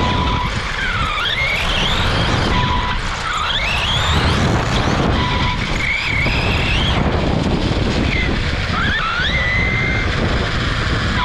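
Onboard sound of a Tekno EB48 2.0 1/8-scale electric RC buggy at speed: the brushless motor's whine rises and falls with throttle over a steady rumble of tyres and chassis on the track, with wind on the microphone. Short steady beeps come every few seconds.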